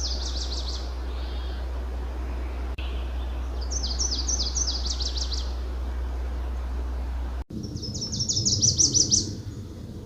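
Nashville warbler singing three times: each song is a series of rapid two-note phrases leading straight into a short, rapid trill. A steady low hum lies under the first two songs.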